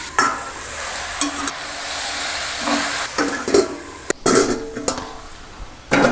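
Flat beans and potatoes frying and sizzling in a pan while a spoon stirs and scrapes them, with several sharp metal clicks against the pan, the sharpest about four seconds in.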